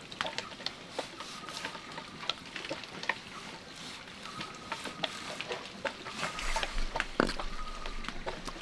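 Utensils lightly clicking and scraping against cookware as cut meat is mixed with seasoning, in short irregular clicks.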